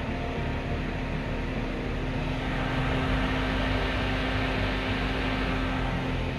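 Two BLDC exhaust fans, a GM Cleano and an Atomberg Efficio, running side by side: a steady rush of air over a low motor hum. About two and a half seconds in, the sound grows louder and hissier at the Atomberg, the fan that moves more air and is noisier.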